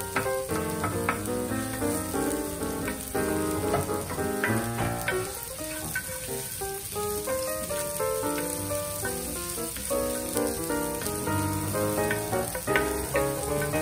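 Background music, a melody of short notes, over diced red onions sizzling in oil in a cast-iron skillet.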